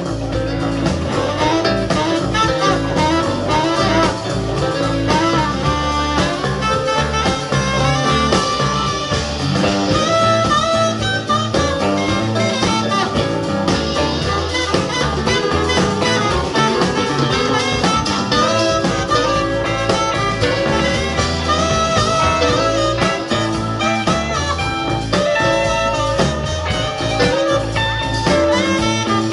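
Live band playing an instrumental blues passage: saxophone over electric guitars, bass guitar and drum kit.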